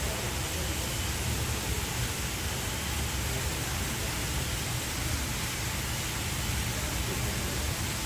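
Steady rushing hiss of a water jet from a pipe splashing into a pool.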